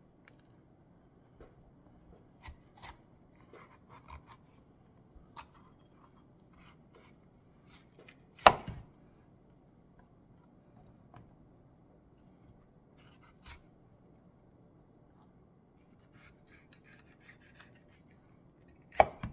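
Kitchen knife cutting through a red bell pepper and striking a wooden cutting board: two sharp knocks about ten seconds apart, with quieter taps and handling of the pepper between.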